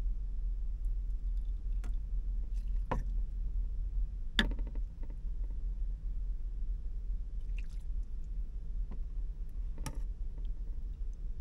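A handful of short, light knocks and clicks, spaced a second or more apart and loudest about four seconds in, over a steady low hum.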